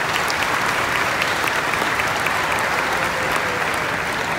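Audience applauding: many hands clapping in a steady wash that eases slightly near the end.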